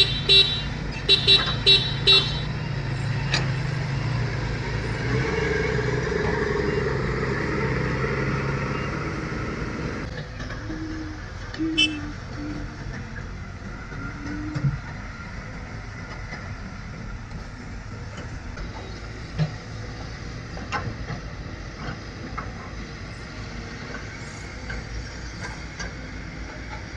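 A vehicle horn tooted in about five short honks, then a heavy machine's engine running steadily at a low pitch. The engine sound drops about ten seconds in, leaving quieter running with a few scattered clicks.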